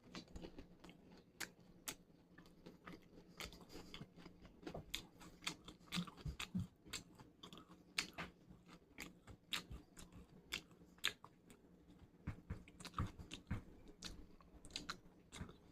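A person biting and chewing chicken tenders: quiet, irregular crunching and chewing sounds.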